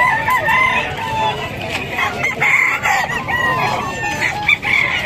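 Several caged gamecocks crowing, their calls overlapping one another.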